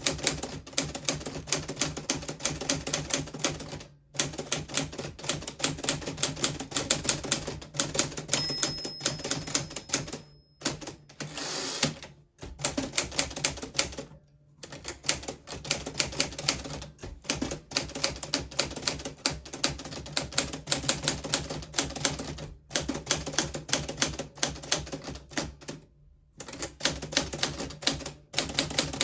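1940s Smith Corona Silent manual typewriter being typed on steadily: a rapid run of key and typebar strikes, broken by a few short pauses.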